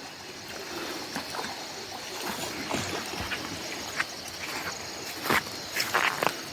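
Footsteps and splashes of someone moving along the edge of a river, over the steady sound of flowing water; the scattered crunches and splashes get louder and closer in the second half. A faint, steady high insect drone runs underneath.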